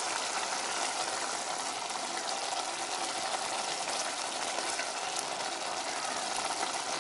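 Onion-and-tomato sauce bubbling and sizzling steadily in a pot on the stove as it cooks down, stirred with a wooden spoon.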